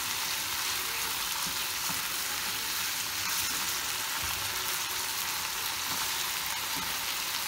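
Minced meat with peppers and tomato sauce frying in oil in a pan, sizzling steadily while a wooden spatula stirs it.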